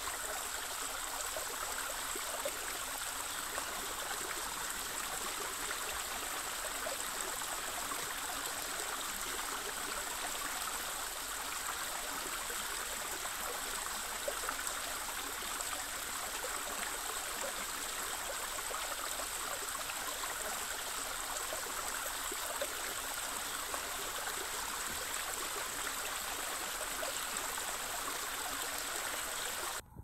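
Shallow mountain creek running over rocks and gravel: a steady rush and trickle of water that cuts off abruptly at the very end.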